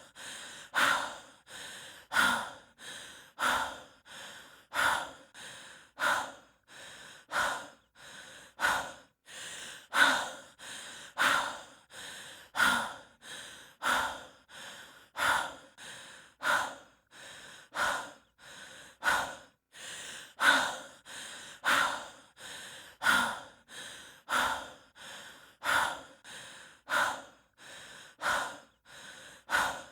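A person breathing heavily and evenly, as a hiker does under exertion: a louder, airy breath about every 1.3 seconds alternating with a softer one, in a steady rhythm.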